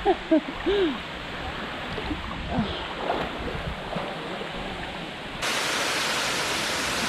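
Waterfall's steady rushing hiss, jumping suddenly louder and brighter about five seconds in. A few short rising-and-falling vocal cries sound in the first second.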